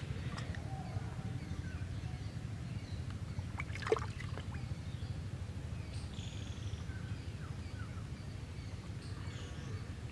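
Outdoor background noise: a steady low rumble with a single sharp knock about four seconds in, and faint short bird chirps, mostly in the second half.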